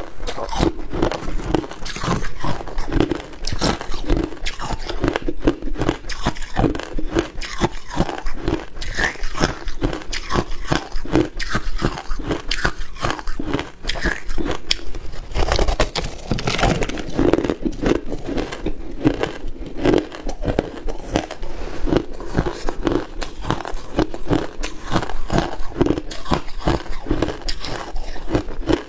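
A person biting into and chewing chunks of hard frozen ice, close to a clip-on microphone: continuous rapid crunching and cracking with no pauses.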